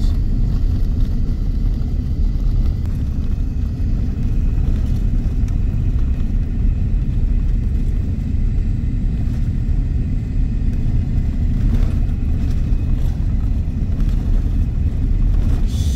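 Steady low rumble of a car driving along the highway, tyre and engine noise heard from inside the vehicle.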